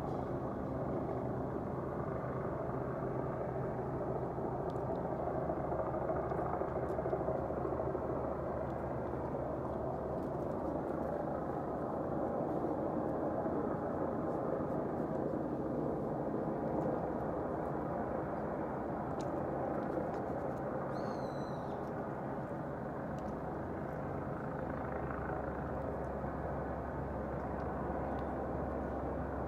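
Steady rushing background noise with a low hum, and a short burst of high chirps about two-thirds of the way through.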